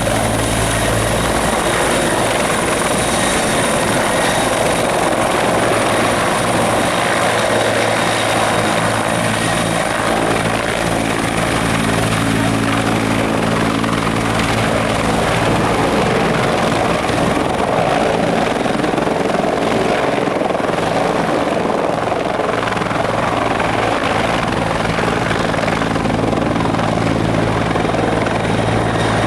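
Turbine helicopter running steadily: the low, even beat of the rotor with a thin high turbine whine above it.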